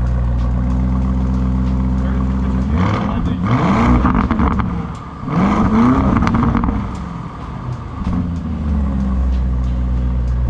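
Lamborghini Urus's twin-turbo V8 heard at the exhaust: idling, then revved hard twice, about three and five seconds in, each rev rising and falling in pitch with some crackling, and a smaller blip near eight seconds before it settles back to idle.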